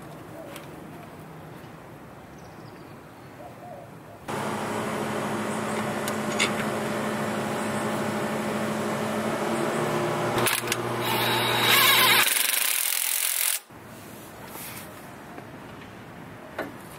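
A power tool's motor running steadily with a whir. It starts suddenly about four seconds in and stops abruptly about nine seconds later.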